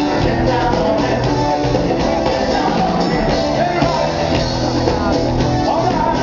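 Live soul band playing: singing over electric guitar, a steady bass line and drums.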